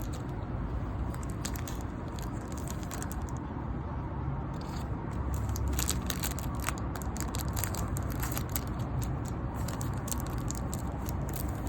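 Scissors cutting open the plastic wrapper of a baseball card rack pack, with irregular crinkling and crackling of the plastic as it is handled and cut.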